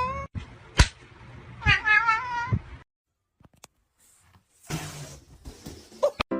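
Domestic cat meowing twice, each a drawn-out meow that wavers in pitch, the second about a second and a half in. A sharp knock falls between the two meows, and a brief rustling with clicks comes near the end.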